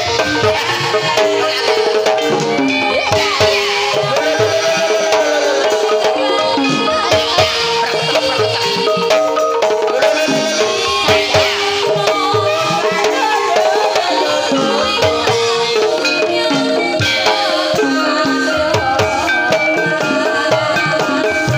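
Javanese ebeg (kuda kepang) gamelan music: metallophones playing a repeating melody over steady drum strokes, with rattling percussion.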